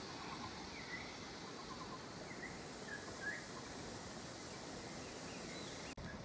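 Birds chirping in short, scattered calls over a steady high hum of insects.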